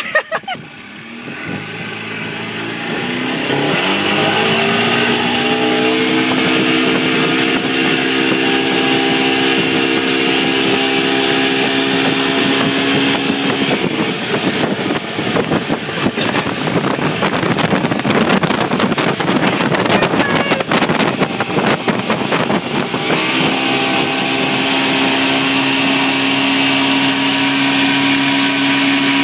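Mercury 125 outboard motor on a Mako 171 powerboat throttling up, its pitch rising over the first few seconds, then running steadily at speed while towing a tube. For several seconds in the middle the engine tone is buried under a rough rush of wind and water.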